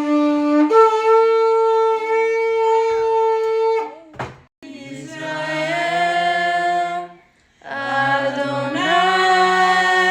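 A shofar (ram's horn) is blown in long, steady, buzzy blasts. One blast ends about four seconds in, a second runs from about five to seven seconds, and a third starts about eight seconds in and steps up in pitch shortly after it begins.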